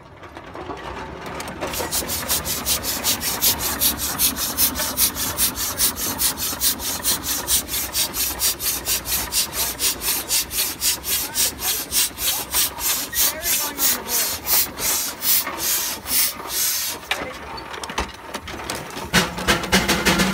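Steam traction engine chuffing steadily as it drives, its exhaust beats coming about four a second. The chuffing drops away briefly near the end, then picks up again.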